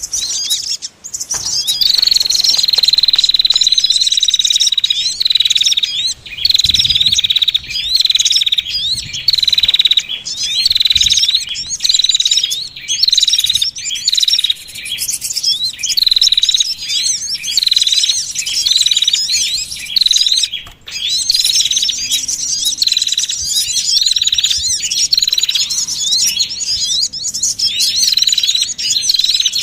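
Small songbirds chirping in a dense, busy chorus, with a high note rising and repeating about once a second under quicker twittering. This is a lure call (suara pikat), played to draw small birds such as the sogon.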